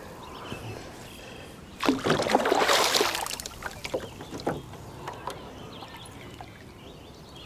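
Water splashing for about a second and a half, starting about two seconds in, as a hooked northern pike thrashes at the surface beside the boat. Scattered light clicks follow over a low steady wash of water.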